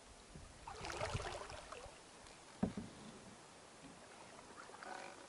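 Canoe paddle stroke through calm water, a swishing splash, followed about two and a half seconds in by a single sharp knock, with softer water dribbling sounds near the end.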